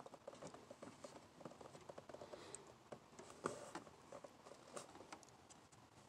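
Near silence with faint, scattered taps and rubbing from fingertips pressing a woodgrain vinyl sticker down along the edge of plastic dashboard trim, with a couple of slightly sharper ticks around the middle.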